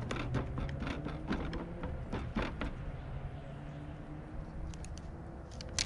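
Hands handling a plastic antenna mounting plate and picking at butyl tape and its backing, making a run of small clicks and crinkles, most of them in the first three seconds, over a steady low hum.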